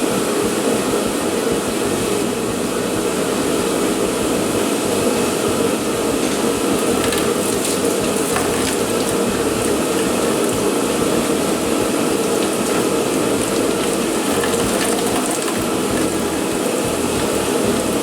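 Shop heater running with a steady, loud blowing noise, and a few faint clicks of hand tools about halfway through.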